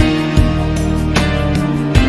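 Background music: guitar over a bass line, with sharp beat strokes about every half second to second.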